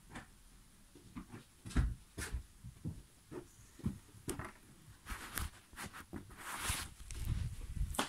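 Handling noise from a phone being moved about: scattered faint knocks and rubbing, growing busier toward the end, with a longer brushing sound late on.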